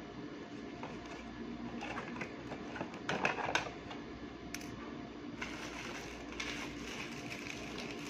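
Hands working on a desk: a few sharp clicks and taps about three seconds in, then a plastic bag rustling, over a steady low hum.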